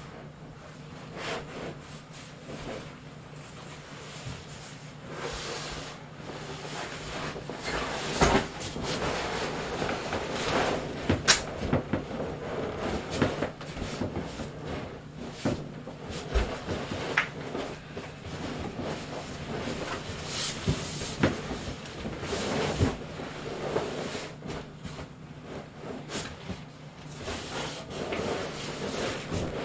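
Irregular rubbing, rustling and soft knocks of a person in a plastic raincoat moving about against an inflated vinyl pool, with a few sharp clicks and a faint steady low hum underneath.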